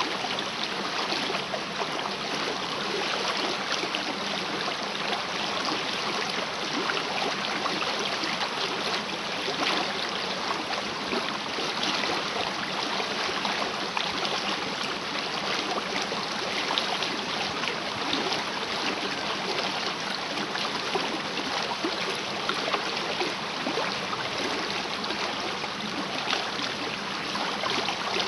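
Small river running high and fast after rain, a steady rushing of water.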